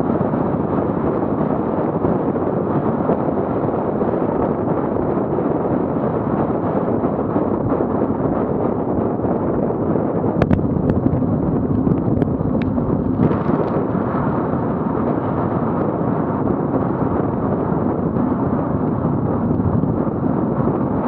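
Wind buffeting the microphone of a camera on a bicycle riding at about 30 km/h: a steady rush, with a few sharp clicks about halfway through.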